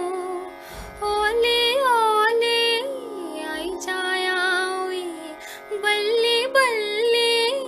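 A woman singing a Dogri folk song, drawing out long ornamented notes that glide and waver, over a steady drone accompaniment. The phrases break twice for short pauses.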